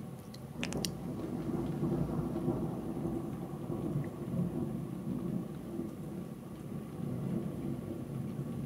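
Thunder rolling: a long, low rumble that swells and fades for several seconds, starting with a few sharp cracks about half a second in.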